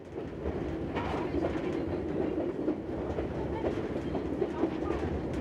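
A steady rumbling drone with a low rumble underneath and scattered faint clicks, fading in at the very start.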